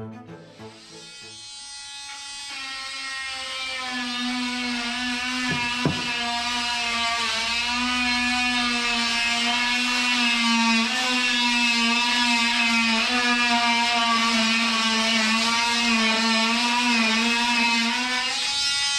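Power tool trimming excess fibreglass from a reinforcement ring, running with a steady, slightly wavering whine that builds over the first few seconds and stops shortly before the end. A single knock comes about six seconds in.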